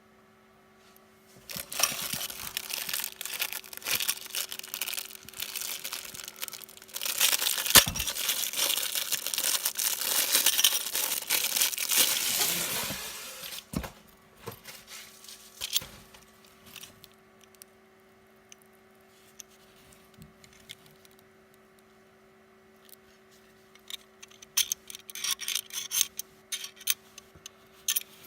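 Plastic packaging being torn open and crinkled for about twelve seconds, loudest in the second half. After that come scattered clicks and rustles of handling, over a faint steady hum.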